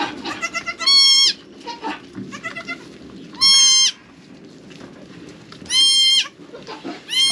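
Newborn goat kids bleating: four loud, high-pitched bleats of about half a second each, a couple of seconds apart, with fainter short calls in between.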